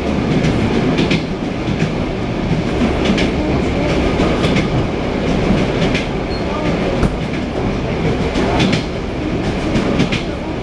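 Wheels of an ED9M electric multiple unit clattering over rail joints, heard from inside the carriage: a steady running rumble with sharp clicks every second or two.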